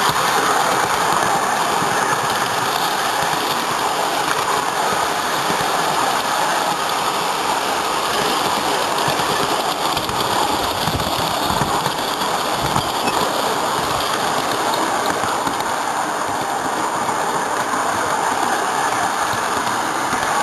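Garden-scale model train running along its track, heard from on board: a steady rushing rumble of wheels and drive with a few faint knocks along the way.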